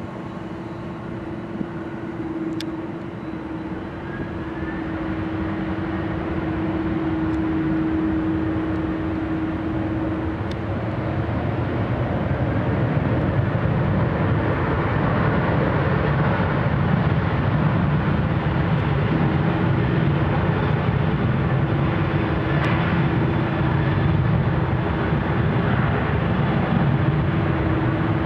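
Boeing 777-300ER's twin turbofans on final approach: a jet rumble that grows steadily louder as the airliner nears. A steady hum carries over the first ten seconds or so.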